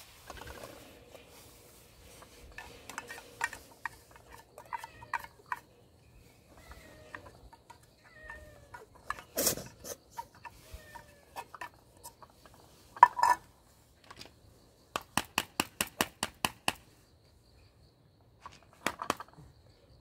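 Clinks, taps and scrapes on a metal pet-food can as wet cat food is dug out and shaken loose, including a quick run of about a dozen even taps. Short high chirping calls come in the first half.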